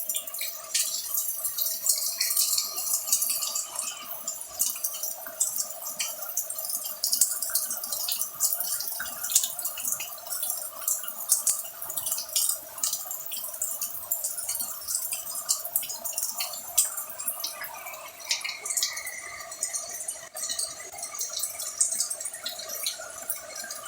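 Heavy rain falling, with many drops dripping and splashing in quick, irregular ticks. A steady hum runs underneath.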